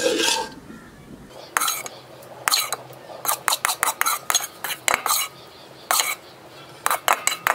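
Metal spoon scraping and clinking against the bottom of a metal pan while scooping out dry, ghee-roasted semolina. It comes as an irregular run of short, sharp scrapes, sometimes several in quick succession.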